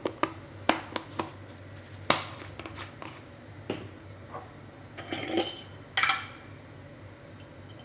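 A stainless steel mixing bowl being tapped and clinked as seasoning is added to the shrimp: a handful of separate sharp knocks, some with a short metallic ring, the loudest about five to six seconds in.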